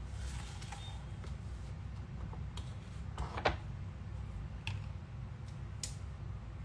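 A few light clicks and knocks, the loudest about three and a half seconds in, over a low steady hum.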